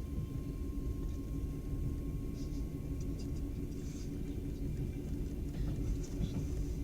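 Passenger train running on the rails, heard from inside the carriage as a steady low rumble, with a few faint high squeaks and ticks about halfway through.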